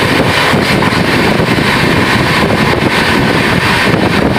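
Loud, steady rush of wind and wheel-on-rail rumble from an express passenger train running at speed, heard at an open coach door or window, with wind buffeting the microphone.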